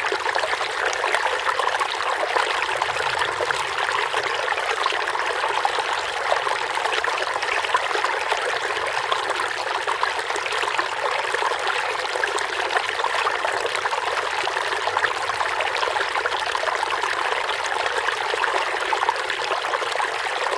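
Water stream flowing, a steady, unbroken babbling and trickling of running water.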